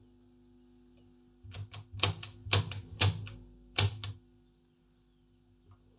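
Piano-key pushbutton switches on a Philips B7X14A valve radio clacking as they are pressed, about a dozen sharp clicks in quick clusters from about a second and a half in to about four seconds in, over a faint steady hum. No station comes through: the radio is not working yet.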